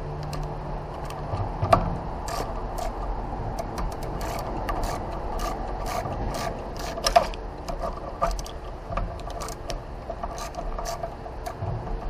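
Hand tools working on a car's rear wheel hub: irregular metallic clicks and knocks over a steady background hum, with two louder knocks about two seconds and seven seconds in.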